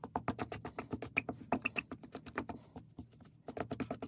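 Chopsticks clicking and scraping against the side of a mixing bowl as flour and hot water are stirred into a shaggy dough, a fast run of short clicks.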